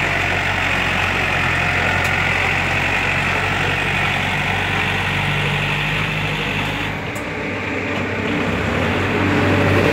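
Yanmar EF514 tractor's diesel engine running steadily while the tractor pushes loose soil with its front blade. The sound dips briefly about seven seconds in and grows louder again near the end.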